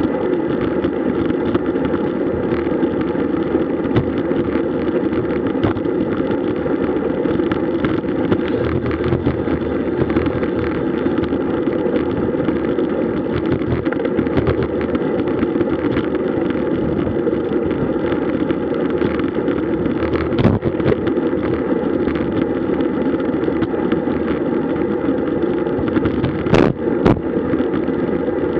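Steady rush of wind and road noise on the microphone of a camera riding on a moving road bike, with a few short sharp knocks near the end.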